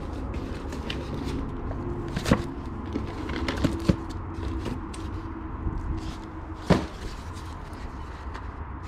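Small objects being handled and set down while a trunk's contents are sorted: a few sharp knocks and clicks about two, four and seven seconds in, over a steady low rumble.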